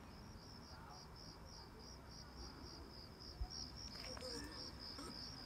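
Cricket chirping: a steady, evenly pulsed high chirp, about three or four chirps a second. A single low thump comes a little past halfway.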